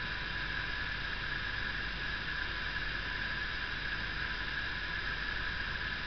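Steady hiss with a thin high whine underneath, unchanging throughout: the recording's background noise, with no other sound.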